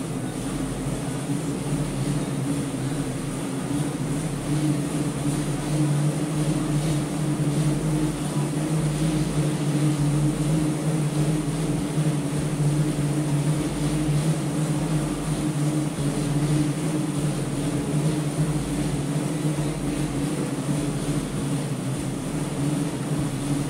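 Mountain bike tyre spinning on a DIY cycling roller trainer while being pedalled: a steady, loud drone of the rollers and tyre, growing a little louder over the first few seconds.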